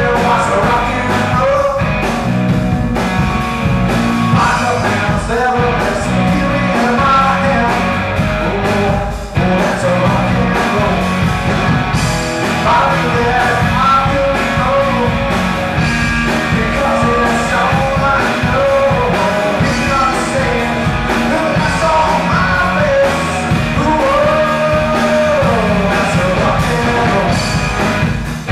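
Rock band playing live: electric guitar, electric bass and drum kit, with a lead melody line bending over the top.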